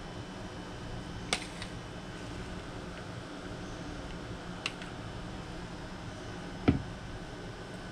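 A metal fork clicking and tapping against a plastic bowl and plate, a few separate sharp clicks, with a louder, duller knock near the end, over a steady background hum.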